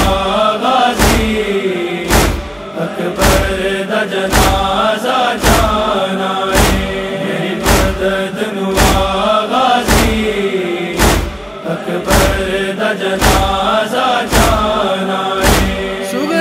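Male chorus humming a wordless lament melody in a Punjabi noha, over a deep thump about once a second that keeps the noha's matam (chest-beating) rhythm.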